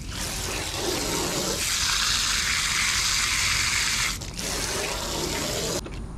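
Water spraying from a garden hose nozzle onto freshly gutted bluegill as they are rinsed, a steady hiss with a short break about four seconds in, shut off abruptly near the end.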